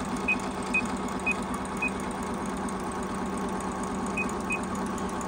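Juki HZL-009 computerised sewing machine running steadily, stitching fabric with a fast even needle rhythm over its motor hum. Six short high beeps come from its touchscreen keys as the stitch length is changed mid-seam: four in the first two seconds and two more just after four seconds.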